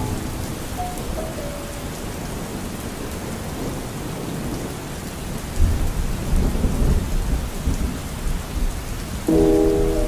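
Steady rain falling, with a low rumble of thunder building about halfway through. The last notes of a soft music track die away in the first second or so, and the next track starts near the end.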